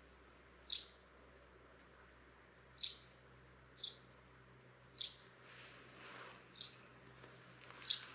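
A bird giving six short, high chirps, each falling quickly in pitch, one every second or two.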